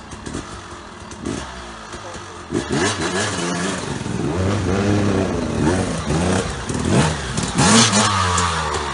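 Trail motorcycle engine revving hard, its pitch rising and falling several times, while it pushes through a river ford, with bursts of splashing water, the loudest near the end.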